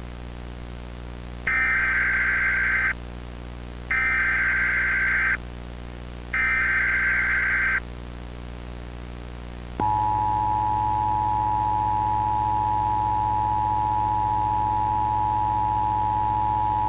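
Emergency Alert System tones: three short bursts of buzzing digital data (the SAME header), each about a second and a half long, then about ten seconds in the steady two-note EAS attention tone starts and holds. A low steady hum runs underneath.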